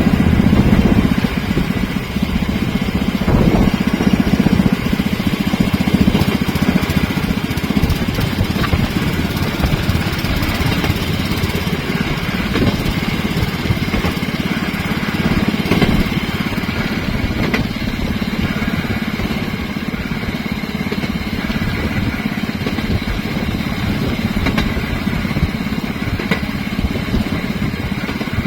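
Engine of a rail vehicle running steadily and close, with a continuous low hum and rumble.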